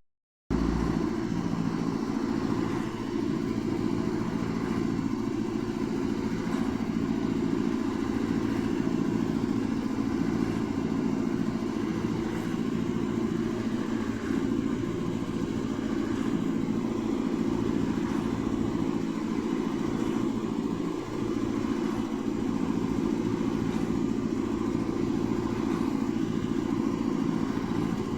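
Semi truck engine idling steadily, with no horn blasts.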